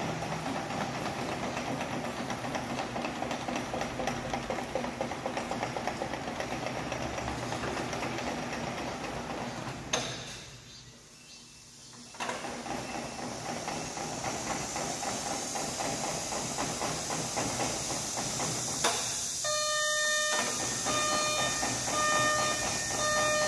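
Engine of a Donggwang DK-HM250 tracked aerial work platform running steadily. It drops away for about two seconds near the middle and then runs again. In the last few seconds the machine's warning beeper sounds, repeating a little faster than once a second.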